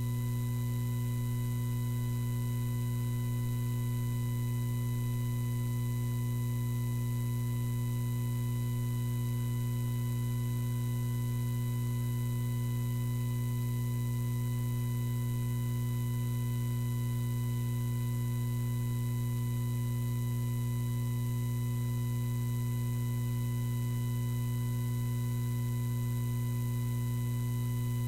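Steady electrical mains hum in the audio feed, with faint high-pitched tones above it. It stays unchanged throughout, and nothing else is heard.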